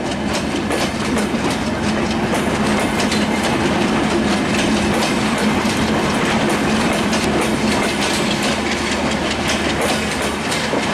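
Bangladesh Railway passenger coaches of the Sundarban Express rolling past close by, their wheels clattering steadily over the rail joints in quick clicks and knocks over a steady low hum.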